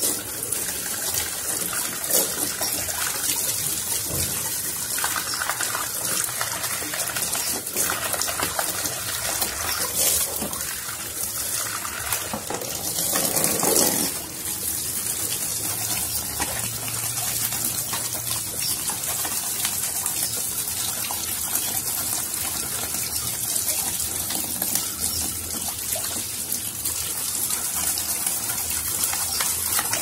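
Water running steadily from a tap pipe while a bird cage's wooden tray is rinsed, louder for a moment about halfway through.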